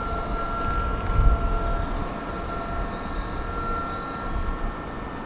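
Electric commuter train running: a low rumble with a steady high whine over it.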